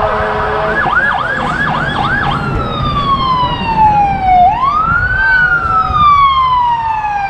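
Electronic emergency-vehicle siren, loud: a fast yelp of about three warbles a second that switches a little over two seconds in to a slow wail, falling, rising once and falling again. A low rumble runs underneath.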